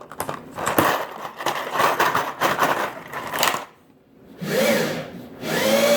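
Small plastic RJ45 connectors rattling and clicking as they are rummaged through to find the right one, a dense clatter for about three and a half seconds. After a short pause, a brief murmur of voice near the end.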